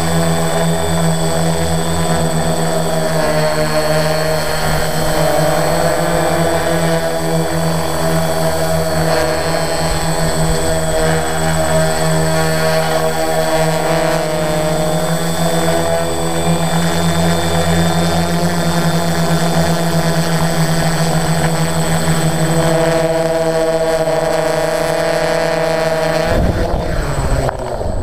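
Remote-controlled drone helicopter's electric motors and propellers whining close to its onboard camera, several steady tones wavering slightly in pitch as it flies. Near the end the pitch falls as the rotors spin down after landing.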